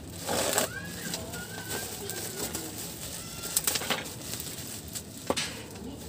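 Plastic bubble-wrap mailer crinkling and rustling in a few short bursts as it is handled and cut open with scissors, with birds chirping faintly in the background.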